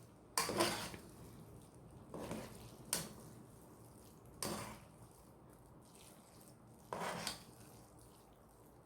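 A utensil scraping and clinking against a cooking pot as spaghetti is mixed with meat sauce, in about five short strokes spaced a second or more apart.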